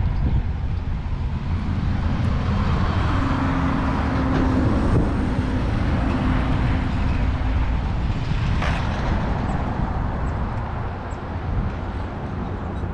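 Wind buffeting the microphone outdoors: a loud, uneven low rumble, with a faint steady hum for a few seconds in the middle.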